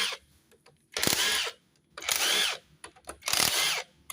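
Four metallic rasping strokes, about one a second, each under a second long, as parts inside the opened clutch housing of a Yamaha Vixion motorcycle are worked back and forth by hand to check them.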